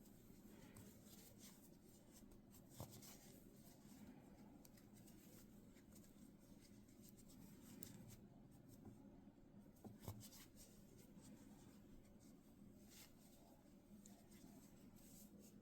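Near silence: faint rustling and scratching of yarn being worked with a crochet hook, with a couple of soft clicks, over a faint steady hum.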